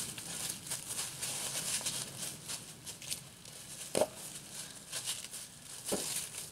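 Rake scraping through dry fallen leaves in repeated strokes, a crisp rustling and scratching, with two brief louder sounds about four and six seconds in.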